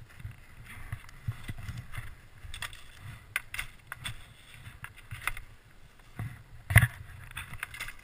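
Skis, poles and ski boots knocking and scraping in snow as a fallen skier gets his skis back on, with scattered clicks and one loud clack near the end as a boot snaps into its binding.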